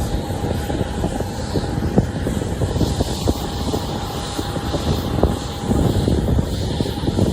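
Airliner jet engines with a steady drone and a held whine on a landing approach. Strong wind buffets the microphone, giving a heavy rumble and crackle underneath.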